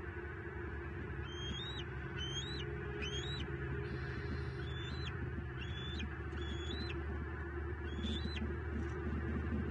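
A bird calling repeatedly: about seven short, high calls a second or so apart, each rising with a quick upturn at its end, over a steady low rumble.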